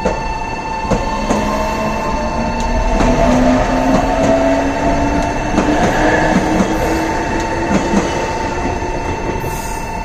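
Meitetsu electric train passing over the station crossing, its motor whine rising slowly in pitch as it gathers speed, with the wheels knocking over rail joints several times. A level-crossing alarm rings steadily throughout.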